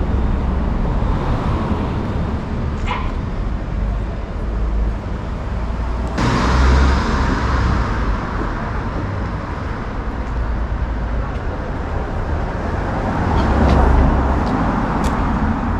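Street ambience of cars going by, swelling louder about six seconds in and again near the end, over a steady low wind rumble on the microphone.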